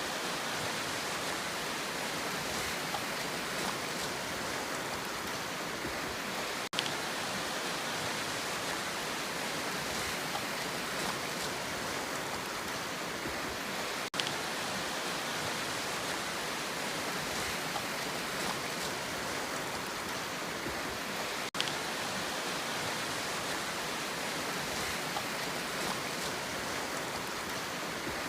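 Steady, even rushing sea sound with no wave-by-wave rise and fall, played as a loop: a brief dropout marks the seam about every seven seconds.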